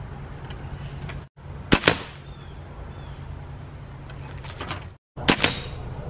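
Two shots from a Beeman R9 spring-piston break-barrel air rifle, about three and a half seconds apart, each a sharp report followed closely by a second crack.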